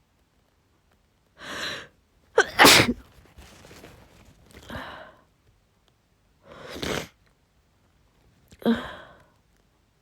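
A woman with a head cold sneezing over and over: five separate bursts, the loudest about two and a half seconds in.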